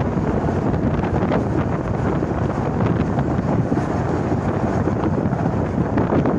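Steam train on the Isle of Man Railway in motion: a steady, loud rumble of the running train with heavy wind buffeting the microphone.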